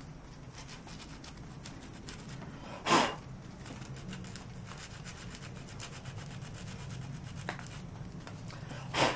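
Sandpaper rubbed by hand over a hardened super-glue-and-baking-soda repair on a plastic clock frame, knocking down the high spots: quiet, quick rubbing strokes, with two louder brief noises about three seconds in and at the end.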